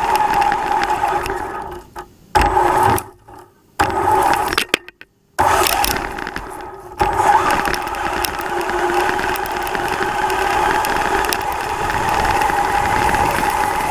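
Traxxas Slash Ultimate RC truck running, with a steady whine and rattle. The sound drops away almost completely twice a few seconds in, then comes back and holds steady.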